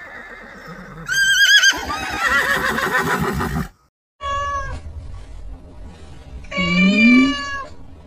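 A horse whinnies, a quavering neigh about a second in. After a brief silence, a cat gives two meowing calls, a short one and then a longer one.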